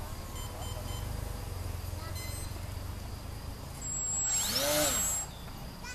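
An electric model aircraft's motor and speed controller briefly run up and back down about four seconds in: a whine that rises and then falls over a rush of noise, lasting about a second and a half. A low wind rumble comes before it.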